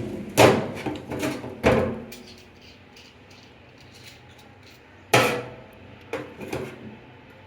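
A series of sharp knocks and clunks, each with a short ring: three in the first two seconds, then three more from about five seconds in, the loudest of them at five seconds.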